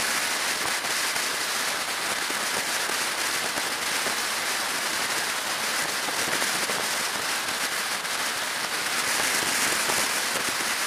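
Steady rushing wind and road noise on the microphone of a camera mounted on a motorcycle cruising at motorway speed, with no clear engine note.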